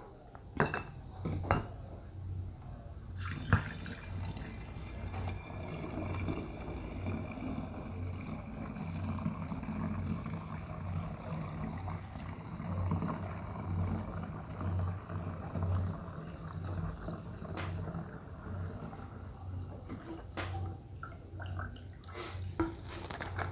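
Strained cuatecomate syrup, sherry-based, being poured into a glass bottle: a steady trickle of liquid with drips, and a few light knocks near the start and end.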